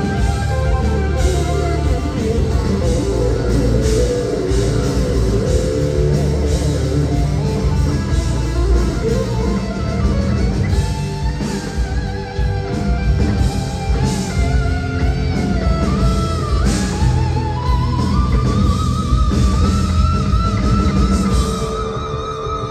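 A heavy metal band playing live: an electric guitar lead over drums and bass guitar, the lead climbing near the end into held notes with a wide vibrato.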